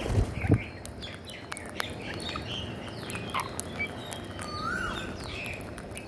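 Rose-ringed parakeets feeding in a flock, giving short chirps and squawky gliding calls, with sharp clicks of beaks picking at grain. Two low thumps about half a second in are the loudest sounds.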